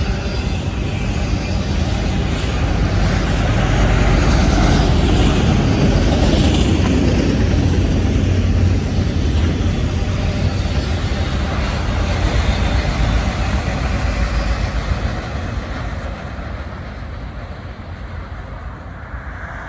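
Low, steady rumble of a passing heavy vehicle, strongest about a quarter of the way in and fading over the last few seconds, with no horn sounding.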